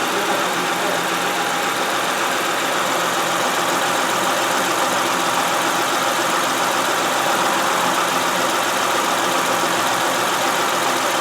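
2005 Honda Pilot's 3.5-litre V6 idling steadily in park, sounding more or less as it should.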